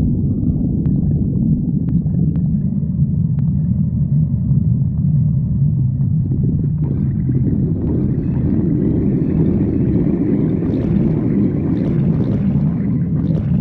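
A stomach growling: a continuous low rumble, with higher-pitched gurgling noise joining about halfway through and stopping right at the end.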